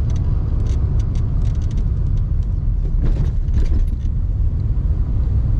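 Car on the move, heard from inside the cabin: a steady low rumble of engine and road noise, with a few brief clicks and rattles.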